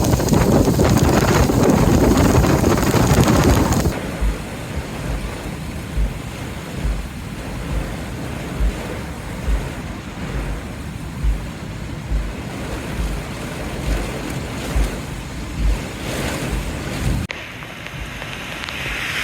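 Heavy rain and strong storm wind, loud for the first few seconds and then easing to a steady rush. Low thumps come at a regular rhythm a little under once a second. The sound changes abruptly near the end.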